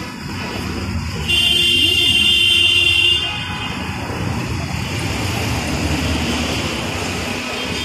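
Busy city-street traffic: a steady rumble of passing cars and motorbikes, with a vehicle horn held for nearly two seconds about a second in.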